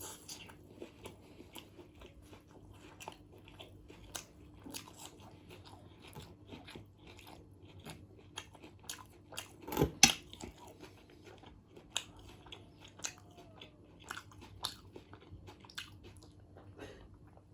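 A person chewing and biting mouthfuls of chicken biryani close to the microphone, with many wet mouth clicks and crunches. One loud crunch comes about ten seconds in.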